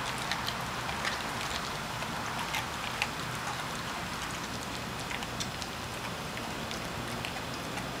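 A Rottweiler chewing raw mackerel: irregular wet clicks and smacks of its jaws, over a steady background hiss.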